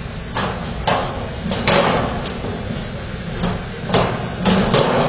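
Irregular knocks and bangs, about seven in a few seconds, over a steady low rumble of construction-site noise.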